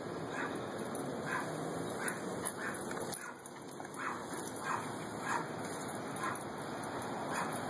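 A dog giving short, repeated yips and whines, roughly one a second, as it chases and snaps at the spray from a garden hose.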